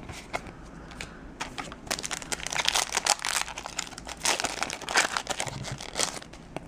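Foil Yu-Gi-Oh booster pack wrapper crinkling and being torn open, a dense patter of crackles that builds up about two seconds in and thins out near the end.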